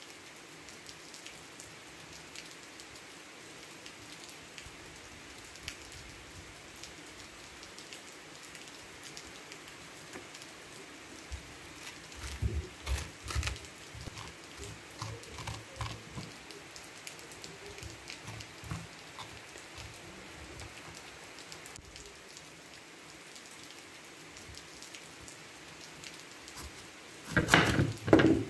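Steady rain falling. About halfway through, a spoon scrapes and knocks pumpkin pulp and seeds onto a plate, and near the end a kitchen knife chops through a pumpkin onto a wooden board with a few loud thuds.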